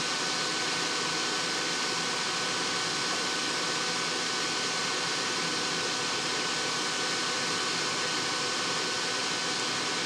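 Steady, even background hiss of moving air, fan-like, with a faint steady high whine running through it.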